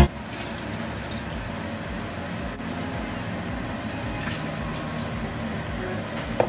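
Orange chicken broth simmering in a large pot on a gas hob, bubbling steadily. Near the end comes a single light knock, like the wooden spoon against the pot.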